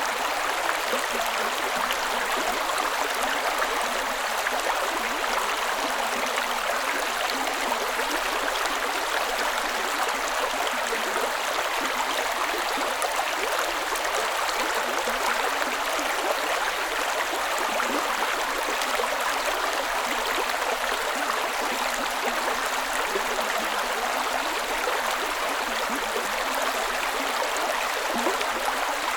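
Creek water running steadily over rocks, a continuous bubbling rush with no pauses or changes.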